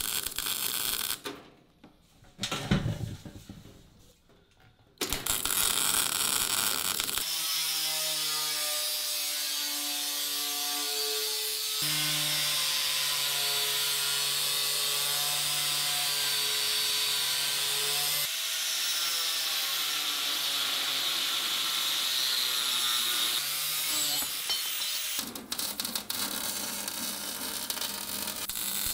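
A few metallic clicks and knocks, then about five seconds in an angle grinder starts grinding along a stainless steel cylinder: a continuous hissing grind whose motor pitch shifts as the load changes. It gives way to clicks again near the end.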